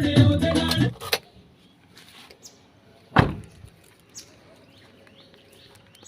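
One short clunk about three seconds in, with a few light clicks around it: the Maruti Alto K10's central door locks being worked with the key. Music plays for the first second.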